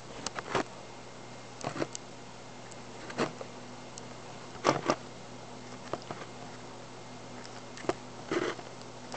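Camera handling noise: fingers touching and bumping the camera body close to the microphone, in scattered short knocks and rubs every second or two over a steady low hum.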